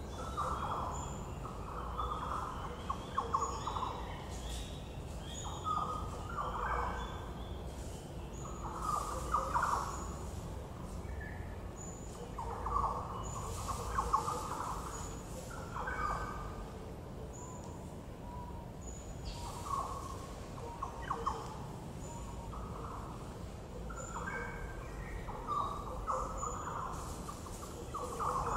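Wild birds calling: short, busy calls every two to four seconds, with a faint high peep repeating about every second or two.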